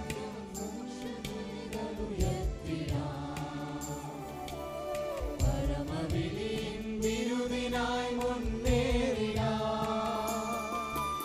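A group of voices singing a Malayalam song together, led by microphone singers and backed by instruments with regular low drum strokes.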